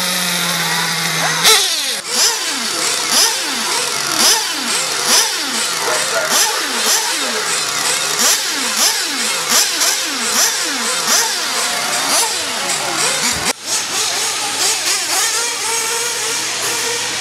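Small nitro engines of 1/8-scale RC buggies: one runs at a steady idle for about a second and a half, then a string of buggies run past in quick succession, each engine's pitch rising and falling as it goes by and as it revs on and off the throttle.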